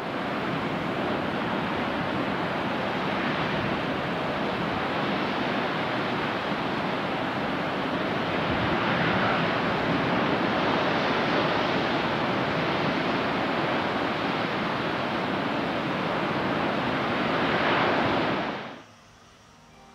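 Heavy sea surf: big waves breaking and surging over a beach and rocks in a continuous rush of water. It swells louder about nine seconds in and again near the end, then cuts off suddenly.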